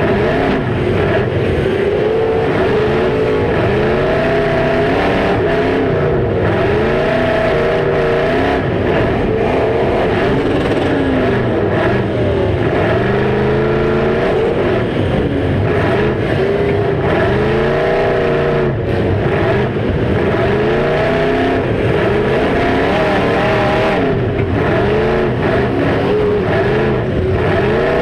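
Several demolition derby cars' engines revving together, their pitches rising and falling over and across each other as the cars accelerate and back off.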